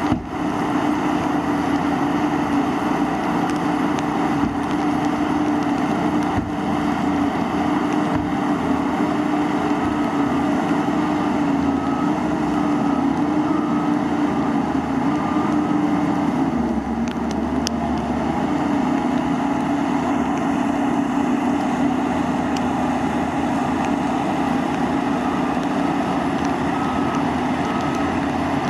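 Heavy earthmoving machine's diesel engine running steadily, its pitch dipping briefly about two-thirds of the way through. Faint, evenly spaced beeping comes and goes twice.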